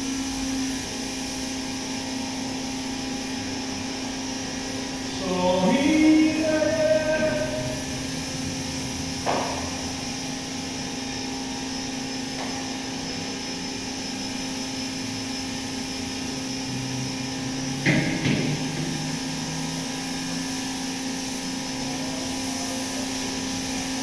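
A steady machine hum with a strong low tone switches on at the start and runs on. About five to seven seconds in, a louder tone glides up and holds. There are sharp knocks about nine and eighteen seconds in.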